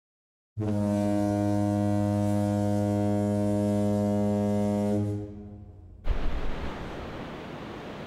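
A ship's horn sounds one long, steady, deep blast for about four and a half seconds, then fades out. From about six seconds in, wind and surf take over, with gusts rumbling on the microphone.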